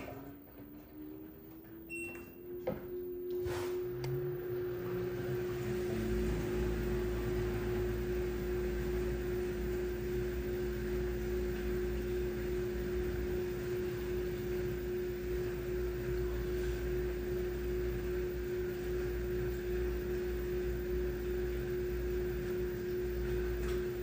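LG washing machine spinning its drum on the delicate cycle: a steady motor whine that rises a little in pitch over the first few seconds and then holds, with a low drum rumble coming in about six seconds in. It cuts off suddenly near the end.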